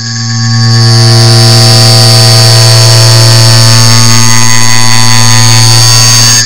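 Clock-tick sound effect sped up so far that the ticks merge into a very loud, distorted low buzz with a steady pitch. It swells in over the first half-second, holds, and cuts off abruptly near the end.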